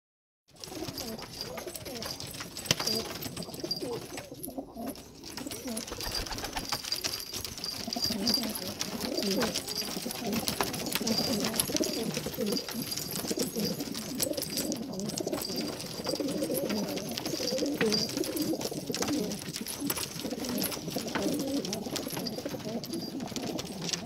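Several domestic pigeons cooing in a loft, their low warbling coos overlapping one another, with a faint high steady tone behind them.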